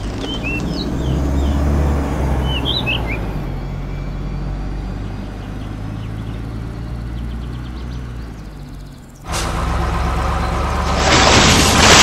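Steady low hum of a truck engine running, with birds chirping over the first few seconds. About nine seconds in it drops out briefly and comes back; near the end a loud rushing hiss, like heavy rain or splashing water, takes over.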